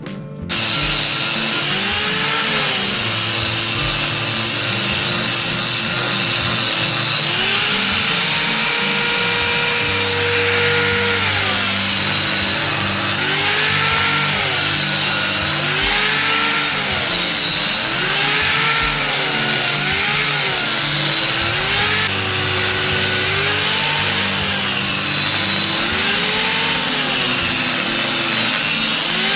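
Electric grinder working the steel of a chainsaw bar, its motor pitch dipping and recovering over and over as the tool is pressed on and eased off, steady for a few seconds near the middle, over a continuous grinding hiss.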